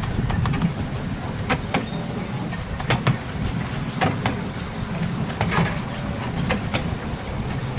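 A 7¼ inch gauge miniature train running along the track with a steady low rumble. Its wheels click over the rail joints, often in quick pairs, every second or so.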